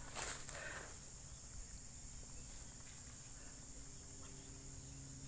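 Insects chirring in a steady high-pitched drone, with a faint low steady hum underneath and a brief rustle in the first second.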